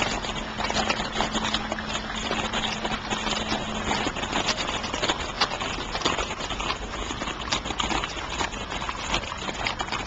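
Many shod horse hooves clip-clopping on a paved street, a dense, irregular clatter of hoofbeats from a group of horses walking together. A steady low hum runs under it for the first few seconds.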